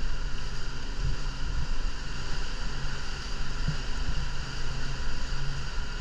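Motorboat engine running steadily under way, with wind gusting on the microphone and water noise from the hull.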